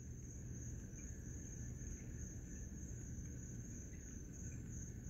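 A steady, high-pitched chorus of night insects, a continuous trill without breaks, over a faint low rumble.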